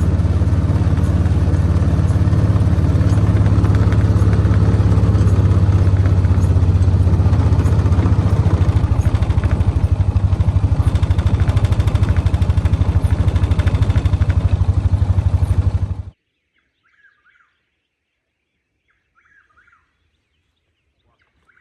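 Vehicle engine running steadily at low speed, with an even low pulsing. It cuts off abruptly about two-thirds of the way through, leaving only a few faint bird calls.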